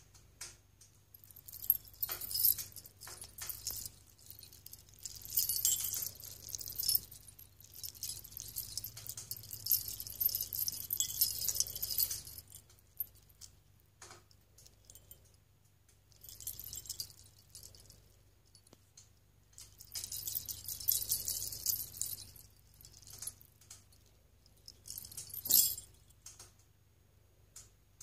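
Small metal jingle bells strung on a cord, shaken by hand in several bursts of jingling with short pauses between them.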